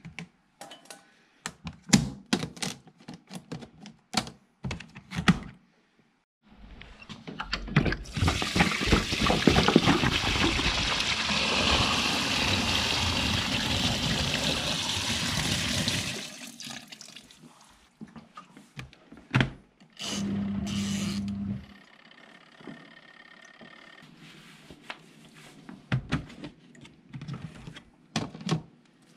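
Water poured from a jerry can into the wash tub of a compact twin-tub washing machine, a steady gush lasting about nine seconds, after several knocks and clicks of clothes and lid being handled. A short low hum follows, then light clicks near the end.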